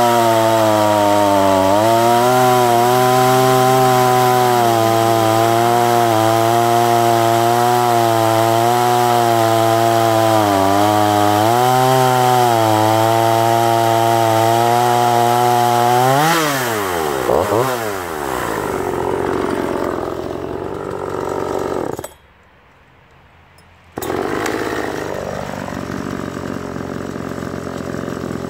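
Oleo-Mac GS 350 two-stroke chainsaw running at full throttle, cutting through a log, its pitch dipping slightly now and then as the chain loads in the wood. About sixteen seconds in, the throttle is let off and the engine drops to idle with a couple of brief blips. After a sudden two-second break the saw is heard idling again.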